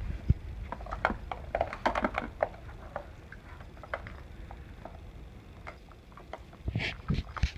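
Cats batting at a plastic circular track-ball toy: irregular light clicks and taps of paws and the balls on the plastic, busiest in the first couple of seconds. A brief rustle near the end.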